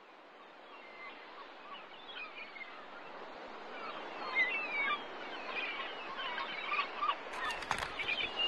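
Outdoor ambience fading in with many birds chirping, the calls growing denser as it goes, and a few sharp clicks near the end.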